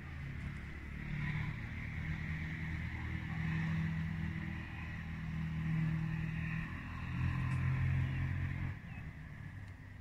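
Low engine hum that swells and fades several times, then drops away abruptly near the end.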